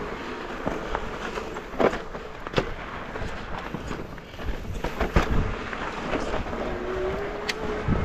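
Mountain bike rolling over a rough dirt trail: a steady rumble of tyres on dirt and rock, broken by sharp knocks and rattles from the bike as it hits rocks, with a short whine near the end.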